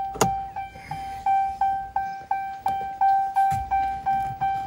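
2018 Ram 2500's warning chime dinging steadily, about three times a second, sounding right after the ignition is keyed off. A sharp click comes just after the start.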